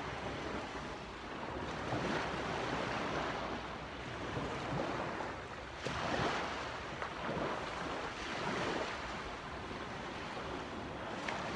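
Small waves washing on the shore of a bay, heard as a steady noise under wind on the phone's microphone.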